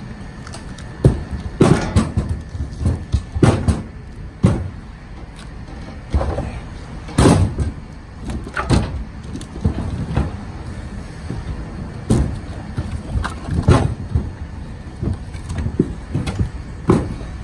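Split hickory firewood pieces knocking and clattering against each other and the truck bed as they are picked up and handed off, in irregular hard knocks over a steady low rumble.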